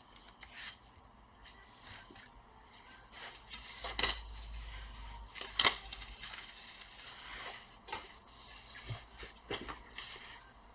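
A laptop being handled on the bench: scattered light clicks and knocks, with two louder knocks about four and five and a half seconds in.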